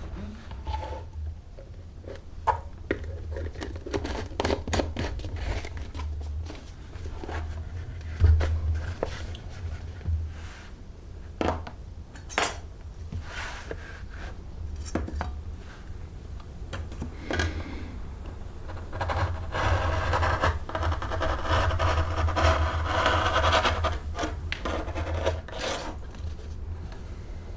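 Hand leatherworking at a bench: tools and leather being handled, with scattered sharp taps and clicks and a longer stretch of scraping about twenty seconds in, over a steady low hum.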